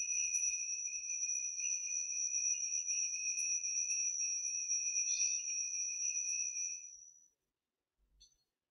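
Altar bells rung continuously, a high steady ringing at two pitches that wavers rapidly in strength and stops about seven seconds in: the bells marking the elevation of the consecrated host at Mass.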